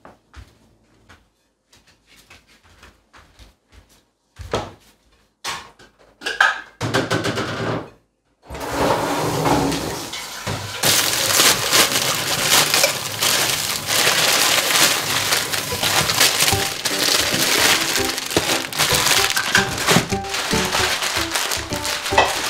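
Plastic instant-noodle packets crinkling and being torn open, a loud dense crackling that starts about eight seconds in after a few soft footsteps and knocks. Background music plays under it.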